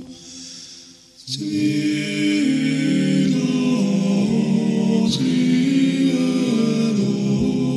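Background music of choral chant: voices singing held chords that shift in steps, coming in about a second in after a short quiet gap.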